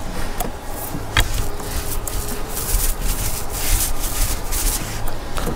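Paint roller spreading contact adhesive onto a rough OSB roof deck, its nap rasping across the boards in repeated back-and-forth strokes.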